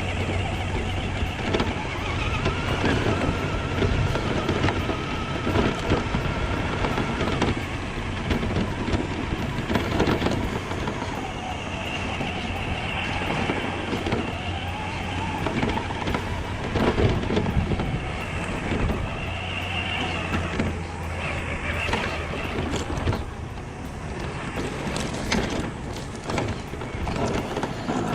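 Tamiya Lunchbox RC car driving off-road: its electric motor and gearbox whine rising and falling in pitch with the throttle, over constant rough tyre and terrain noise.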